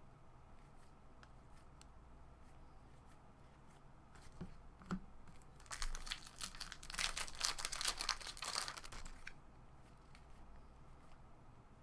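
A trading card pack wrapper being torn open and crumpled, a dense crinkling and tearing from about four to nine seconds in, with a few faint clicks of cards being handled before it.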